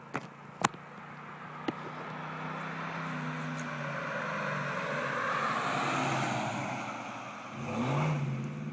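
2008 Ford F-150 with a Thrush aftermarket exhaust driving past. The engine note grows louder as it approaches, peaks about six seconds in and eases off, then rises in pitch and loudness again near the end as it accelerates. A few sharp clicks come in the first two seconds.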